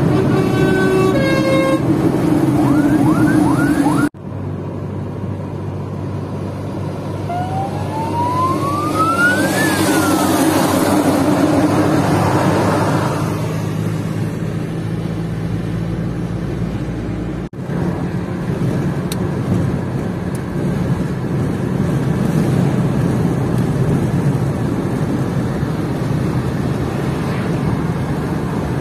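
Steady road and engine noise inside a car driving at motorway speed, broken by two abrupt cuts in the sound. About seven seconds in, a single tone rises and then falls back, like a siren.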